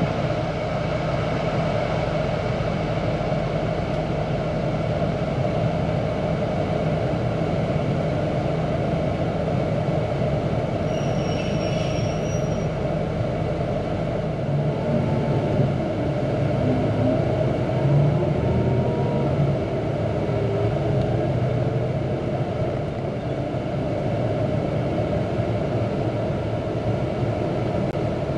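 Steady rumble and low hum of a running diesel vehicle, with a brief high-pitched whine about halfway through and some shifts in engine pitch after it.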